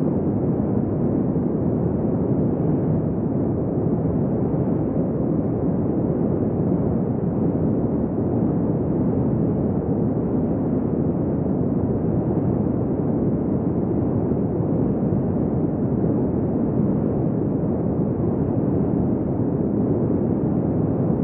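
Strong wind blowing steadily, a dense low rushing noise with no gusts or breaks, as in a windy desert ambience.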